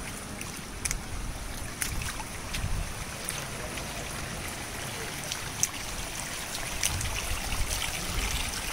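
Small sea waves washing in over sand and around rocks in shallow water: a steady wash with a low rumble and a few short, sharp splashes.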